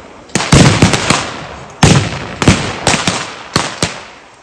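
A ragged exchange of gunfire from revolvers and rifles loaded with blanks: about nine sharp shots at uneven intervals, each trailing off in an echo.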